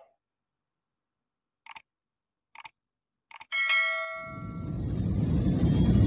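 Three mouse-click sound effects and then a bright bell chime that rings for about a second, the sound of a subscribe-button animation. About four seconds in, the steady noise of a jet airliner's cabin in flight fades in and grows louder.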